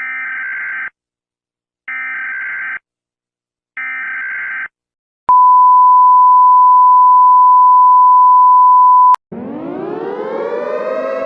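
Emergency Alert System tones: three short data bursts (the SAME header), each about a second long and a second apart, then a single steady attention tone near 1 kHz held for about four seconds that cuts off abruptly. A civil-defence siren then starts winding up, rising in pitch, near the end.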